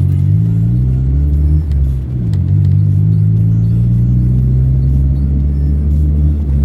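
Vehicle engine accelerating through the gears: its pitch climbs, drops at a gear change about two seconds in, then climbs slowly again before another drop near the end.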